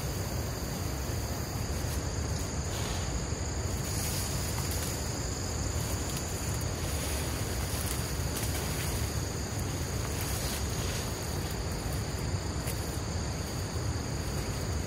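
Insects trilling steadily on two high, unbroken tones over a low wind rumble on the microphone, with a few short rustles of vegetation being pulled.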